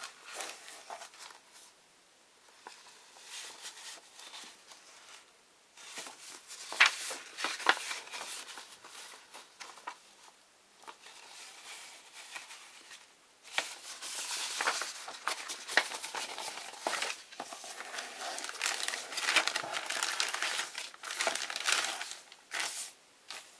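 Paper instruction leaflets rustling as they are handled, then clear plastic bags crinkling. The crinkling grows louder and denser about halfway through.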